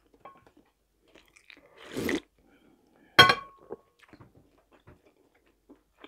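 Mouth chewing a chicken shawarma: scattered soft wet clicks and smacks, with a louder noise about two seconds in and a sharp loud smack just after three seconds.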